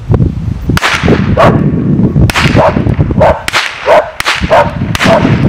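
A handgun fired repeatedly into the air from horseback: a rapid string of sharp shots about every half second. A dog barks among the shots.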